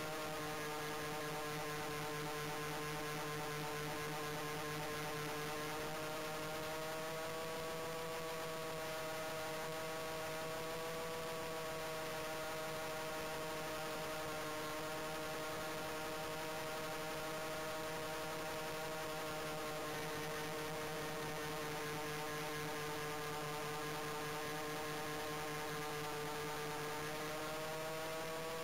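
Motors and propellers of a radio-controlled model Heinkel He 219 in flight, heard from a camera mounted on its fuselage: a steady whine whose pitch drifts slightly up and down.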